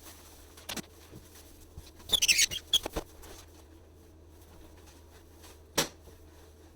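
Handling noises: a few sharp clicks, with a brief burst of high squeaking and scraping about two seconds in and a louder click near the end, over a low steady hum.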